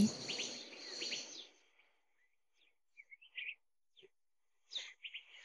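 Quiet background ambience: a steady high hiss fades out in the first second and a half, then a few faint, short bird chirps come in the middle and near the end.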